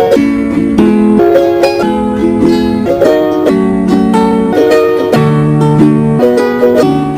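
Upbeat background music led by a plucked ukulele, with quick changing notes and a steady beat.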